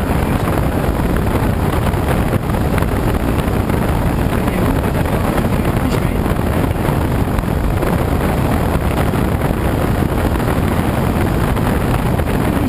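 Steady rush of air over a glider's canopy in flight, with wind buffeting the camera microphone. The noise is loud and even, with no engine.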